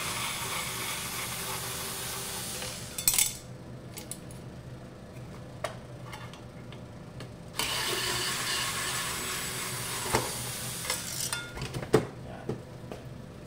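Black+Decker cordless electric screwdriver running in two spells of about three seconds each, turning screws in a sheet-metal case. Sharp metallic clicks and knocks fall between the spells and after them.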